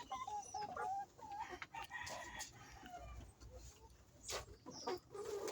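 Laying hens clucking in a pen, a scattered string of short calls, with one sharp click about four seconds in.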